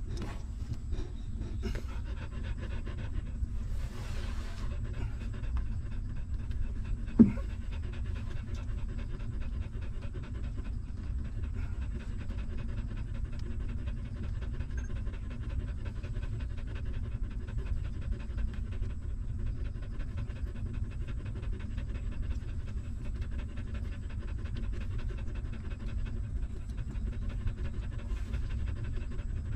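Nursing mother dog panting rapidly and steadily beside her newborn puppies, with a single sharp click about seven seconds in.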